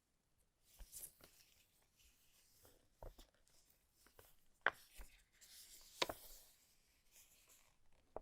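Hands handling keyboard packaging: soft rustling and scraping with scattered light clicks and knocks, two sharper clicks a little past the middle.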